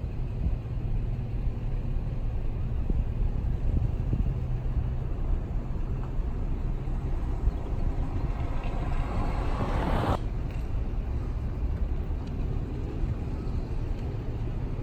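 Steady low rumble of outdoor background noise, with a rushing sound that builds over a few seconds and cuts off abruptly about ten seconds in.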